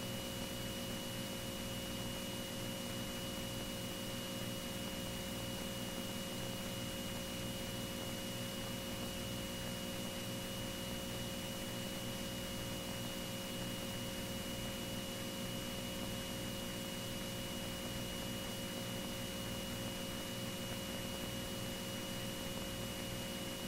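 Steady electrical hum and hiss with a thin high whine, the background of a Beech T-34 Mentor's intercom audio in flight, with the engine's steady drone muffled underneath.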